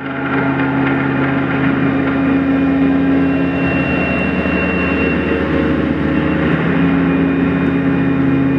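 Ambient electronic drone of sustained low tones held as a steady chord, fading in at the start and shifting slightly near the end.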